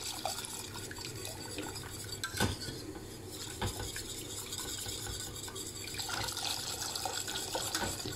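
A metal whisk stirring in a stainless steel pot as milk is poured in from a carton, gradually thinning a flour-and-butter roux into béchamel sauce. The whisk clinks against the pot a few times.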